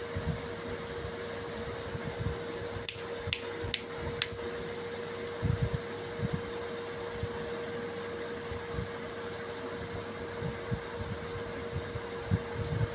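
Steady mechanical hum with one constant pitch, like a fan motor. About three seconds in come four sharp clicks, roughly half a second apart.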